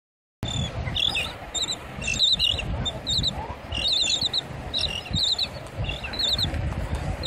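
Royal terns and a beach flock calling: rapid, short, high chirping notes in quick clusters of three or four, again and again, over a low rumble.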